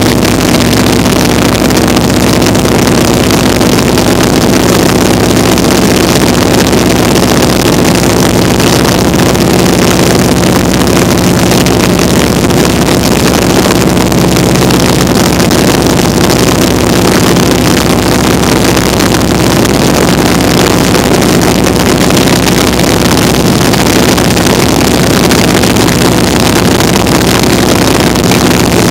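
Vintage open-cockpit biplane's radial engine running steadily in flight, heard from the open cockpit with heavy wind rush over the microphone.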